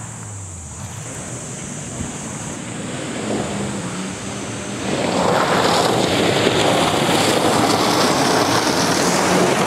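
A rally car on a gravel stage approaching with its engine running hard. About halfway through it arrives and slides past, with a loud hiss of gravel sprayed from its tyres over the engine noise.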